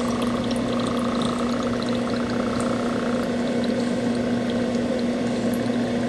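Small electric water pump running steadily with a low hum and a rush of flowing water, circulating cooling water through the reflux condenser's hoses.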